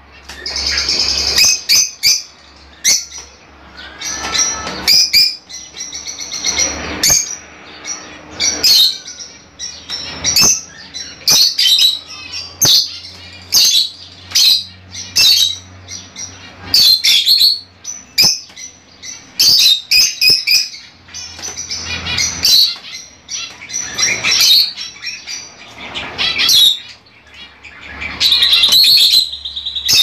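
Fischer's lovebirds chirping and calling: high-pitched, shrill chirps coming in quick, irregular bursts, several calls overlapping.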